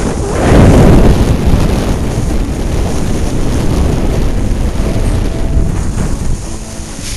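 Wind rushing over the microphone of a camera carried by a moving skier, with skis scraping and hissing over packed snow. Loudest about a second in, then steady.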